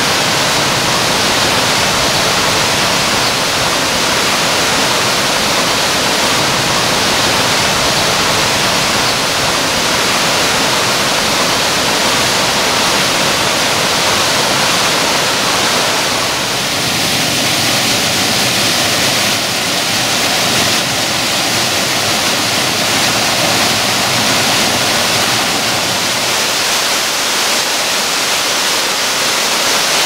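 Water cascading over rock steps in a waterfall: a loud, steady rushing.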